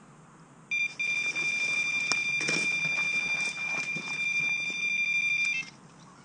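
Electronic carp bite alarm sounding one continuous high tone for about five seconds, starting about a second in and cutting off suddenly near the end: a fish is taking line on a full run. Footsteps through grass sound under it.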